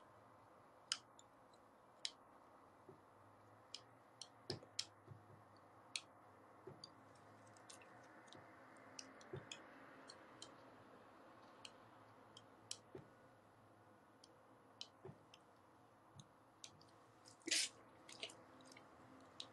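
Near silence with faint, scattered clicks and taps at irregular intervals, a slightly louder one near the end.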